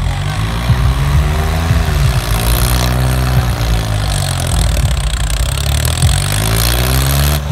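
Tractor's diesel engine running hard under load as the tractor, reared up on its rear wheels, spins on dirt; the sound rises and falls in slow swells.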